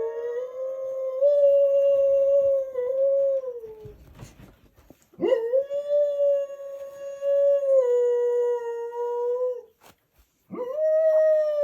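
Dog howling in long, drawn-out howls, each held for several seconds at a fairly steady pitch that steps down slightly near its end, with short breaks between them.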